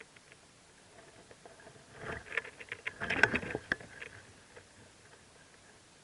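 Rustling, scratching and pattering in a mockingbird nest, with faint high cheeps from the nestlings, rising in a busy burst for about two seconds in the middle and then settling back to a low hiss.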